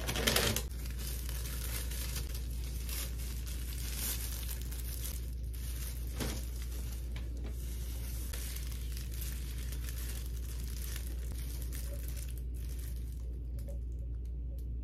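Paper instruction leaflet rustling and crinkling as it is unfolded and handled, loudest in the first half-second, then faint handling noises over a steady low hum.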